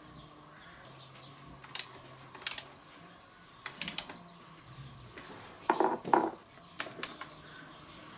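Hand tools working the steel bolts of a dirt bike's handlebar clamp, a small ratchet among them: a few sharp metallic clicks and clinks spaced over several seconds, with a louder double clatter about six seconds in.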